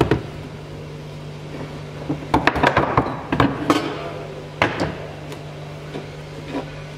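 Steel chainsaw bar being shifted and set down on wooden blocks: a run of knocks and clatters a couple of seconds in, then another single knock about a second later, over a steady low hum.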